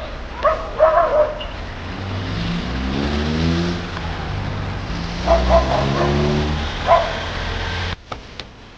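A car engine accelerating, its pitch rising twice as it pulls away, with a dog giving a few short barks over it. The sound cuts off abruptly near the end.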